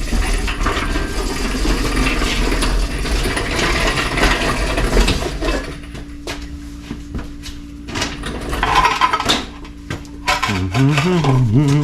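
Metal rattling and clattering as an engine on a wheeled stand or cart is rolled across the shop floor. Scattered clicks and knocks follow, and a low wavering tone sounds near the end.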